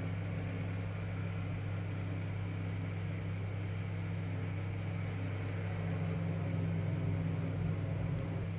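Steady low machine hum, even and unchanging throughout.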